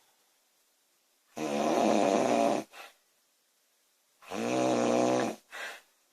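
A woman snoring: two loud, rattling, pitched snores about three seconds apart, each lasting a little over a second and each followed by a short, softer breath.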